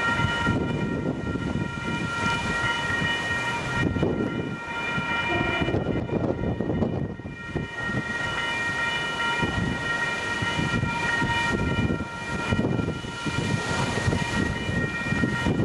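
Strong gusty wind buffeting the microphone, with a steady high-pitched alarm-like tone held throughout that does not rise or fall.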